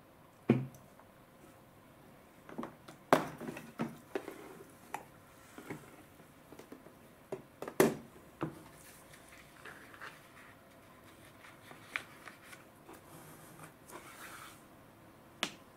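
Handling of a paper instant-noodle cup and its half-peeled lid: a string of light knocks, clicks and paper rustles. The sharpest come about half a second in, near three seconds and near eight seconds, with one more click near the end.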